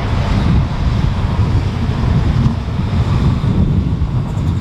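Wind buffeting the microphone, the loudest thing throughout, over the running noise of an electric passenger train rolling by on a mountainside line and fading away as its last car passes.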